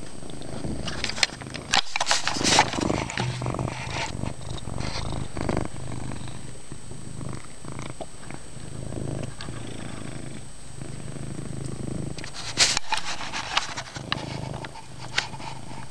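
Domestic cat purring loudly and steadily. A few sharp rustling and knocking sounds come around two seconds in and again about twelve seconds in.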